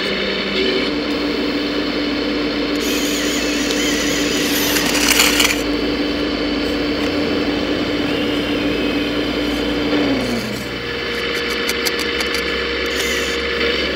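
Hydraulic pump of a 1:14-scale RC model machine whining steadily, dropping in pitch about ten seconds in, then whining again at a higher pitch. Gravel scrapes and clinks about five seconds in, with clicks near the end.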